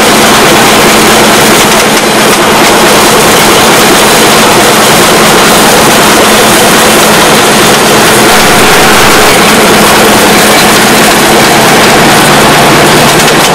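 Loud, steady roar of wind and road noise with a low engine hum from a moving 1967 VW split-screen van's air-cooled flat-four, picked up through an open side window while the van drives at speed.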